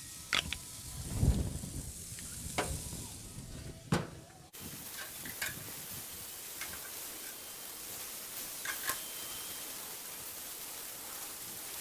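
Pork ribs sizzling on a gas grill with a steady hiss, broken by a dull thump about a second in and scattered sharp clicks of metal tongs against the meat and grate.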